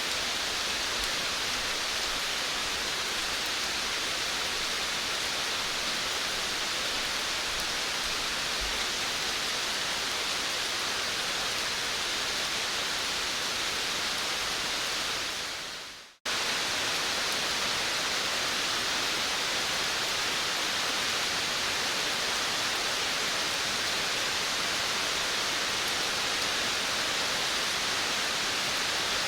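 Rain falling on a veranda, a steady, even hiss. About halfway through it fades out over a second or so to a brief silence, then starts again abruptly.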